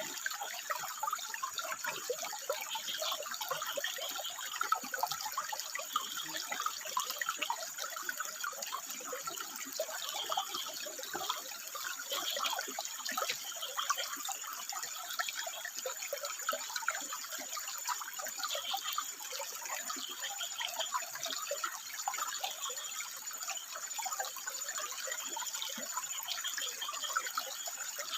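Water running and splashing over rocks, with frogs calling in short, rapid pulsed bursts every couple of seconds. A faint steady high-pitched tone runs beneath.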